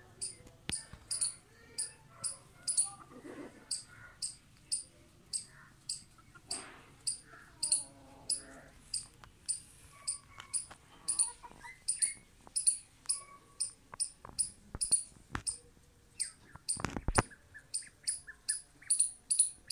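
A steady series of short, high-pitched chirps, about two a second, with faint lower calls in between and a brief low thump near the end.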